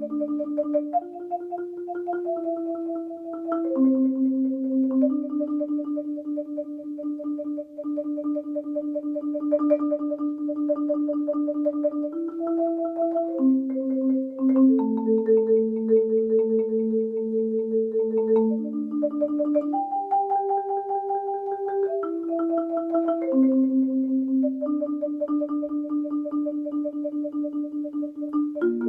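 Solo marimba played with four mallets: rolled chords, each held note sustained by rapid repeated mallet strokes, the harmony shifting every second or two.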